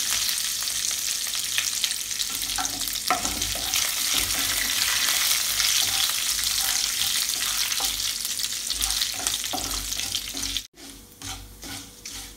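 Urad dal, mustard seeds, dried red chillies and curry leaves sizzling in hot oil in a frying pan while a wooden spatula stirs and scrapes through them, the tempering as the dal browns. The sizzle drops away suddenly near the end.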